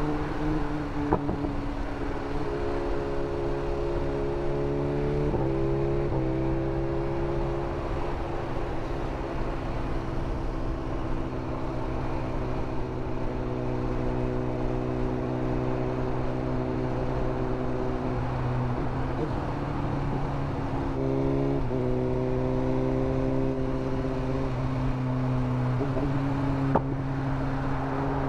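BMW M 1000 R's inline-four through an Arrow titanium exhaust, cruising at steady revs, with wind rush. The engine note steps up in pitch about five seconds in and again later on.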